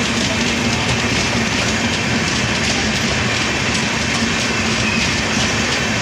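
Passenger trains running side by side on adjacent tracks: a steady rumble and rush of steel wheels on rail, with faint quick clicking of the wheels over rail joints.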